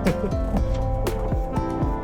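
Background music with plucked guitar-like notes over a steady beat.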